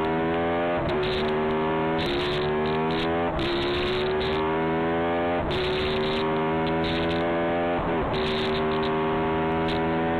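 Ducati 996R's V-twin engine at full throttle, shifting up repeatedly: the pitch climbs through each gear and drops sharply at each shift, about five times. Wind rushes over the on-board microphone.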